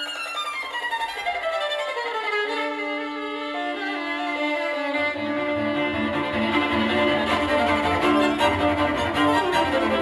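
Violin music played back through Cube Audio Jazzon full-range speakers driven by a Tektron tube amplifier running 2A3 tubes, picked up in the room. A run of falling notes opens the passage, and lower accompanying notes join about halfway.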